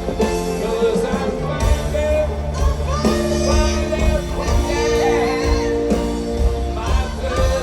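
Live rock band playing a slow gospel-tinged ballad, with singing over it and long held notes in the middle. It is recorded from within a stadium crowd.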